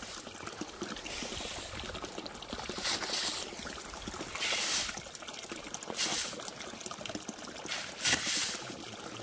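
Water trickling and splashing, with louder surges of splashing every second or two.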